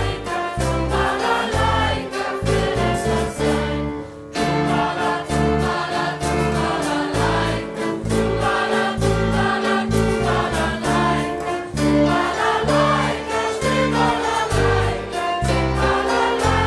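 Choir singing with a live band: a steady, changing bass line under group vocals and regular percussion hits. The music thins out for a moment about four seconds in, then comes back in full.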